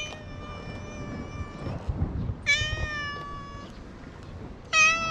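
Tabby-and-white stray cat meowing three times: two long drawn-out meows, then a short, loudest one near the end.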